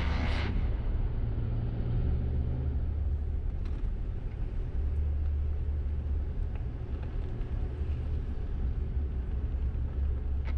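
AEV Chevy Colorado ZR2 Bison pickup driving on a dirt forest road: a steady low rumble of engine and tyres, with a few faint knocks and rattles.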